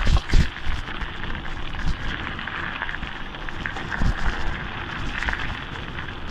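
Mountain bike rolling downhill on a gravel track: a steady crackle of the tyres on gravel, with low thumps as the bike and microphone take the bumps, the strongest right at the start and another about four seconds in.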